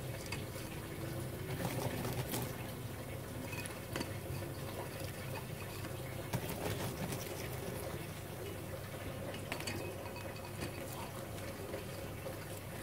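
Chopped coconut-husk chips and charcoal pieces rustling and clicking now and then as they are pressed by hand into a clay pot, over steady background noise.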